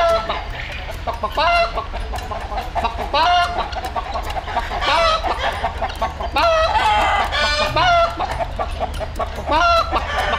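Roosters crowing over and over, a call every second and a half or so, with hens clucking between them.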